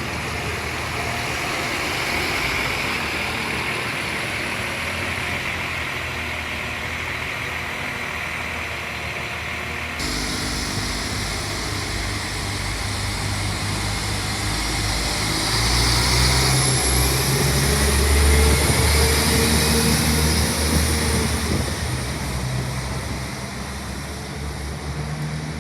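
Diesel multiple-unit train's engines running at the platform, the sound changing abruptly about ten seconds in and the low engine note growing to its loudest about two-thirds of the way through before easing off.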